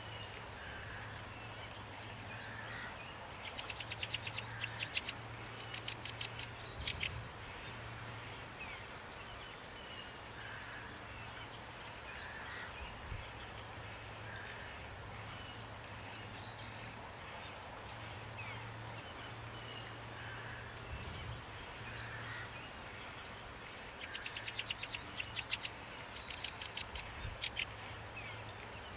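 Steady rain with birds singing over it: many short high chirps and falling whistles, and a fast trill of rapidly repeated notes about four seconds in and again about 24 seconds in.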